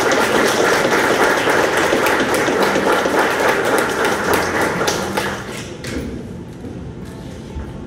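Audience clapping, a dense patter of many hands that dies away about six seconds in.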